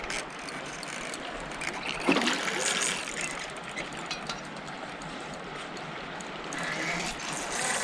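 Steady rush of a flowing river, with a short louder noise about two seconds in.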